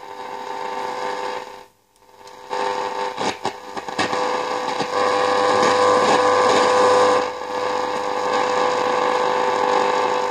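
De Wald 310 valve radio's loudspeaker hissing with static and a steady whistle tone while being tuned. It drops out briefly about two seconds in, then comes back louder with crackles.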